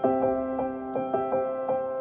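Background music: a piano playing a steady stream of notes, about four or five a second, over a held lower note.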